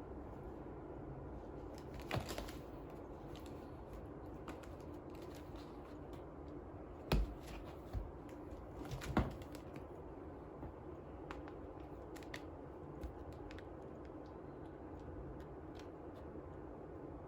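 Scattered light clicks and taps over a steady low hum, with a few louder knocks about two, seven and nine seconds in.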